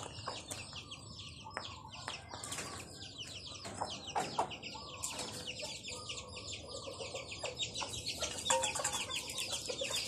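Thai native backyard chickens: a brood of chicks peeping nonstop in quick, high, falling chirps, with a hen clucking low now and then.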